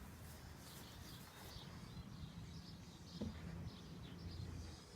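Faint outdoor ambience: small birds chirping now and then over a low steady hum, with one short rising sound about three seconds in.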